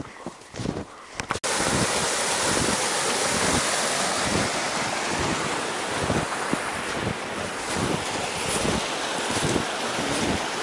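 Footsteps in snow for the first second and a half, then a sudden change to a loud, steady rush of wind buffeting the camera microphone, with regular footfalls in snow under it.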